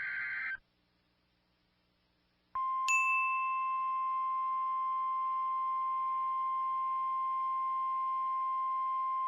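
An EAS/SAME digital data burst, a rapid two-pitch warble, ends half a second in. After about two seconds of silence the NOAA Weather Radio 1050 Hz warning alarm tone begins: one steady, pure, high beep that is held on, with a brief higher tone flaring just after it starts.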